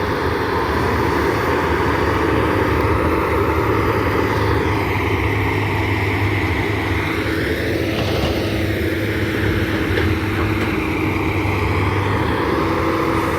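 Excavator's diesel engine running steadily while the machine works.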